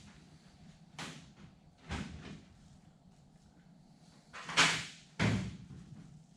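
Four separate knocks and clunks of workshop handling, spaced irregularly, the loudest about two-thirds of the way through.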